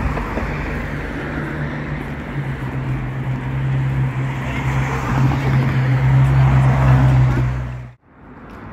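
Street traffic noise dominated by a steady, low engine hum that grows louder over several seconds, then cuts off abruptly about eight seconds in.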